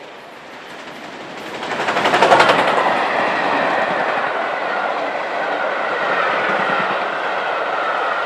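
Unrebuilt Bulleid Battle of Britain class three-cylinder Pacific steam locomotive 34067 Tangmere passing at speed. It swells to a loud, rapid burst of exhaust beats as the engine goes by about two seconds in, then its coaches rush past with a steady rolling rumble and a high, slowly falling ringing from the wheels on the rails.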